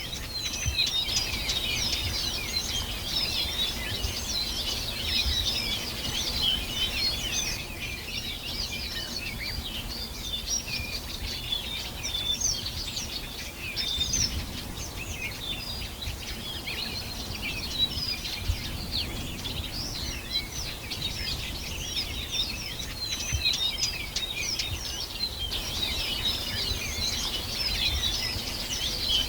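Many songbirds singing and chirping at once, a dense, continuous chorus of short high chirps and trills, over a faint low rumble.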